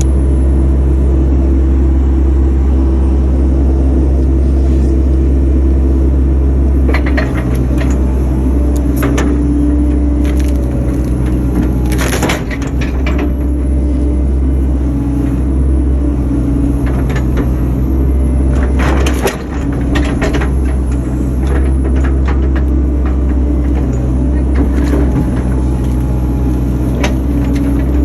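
Excavator's diesel engine running steadily, heard from inside the cab, with irregular sharp cracks and knocks of wood as big stumps are worked and broken up.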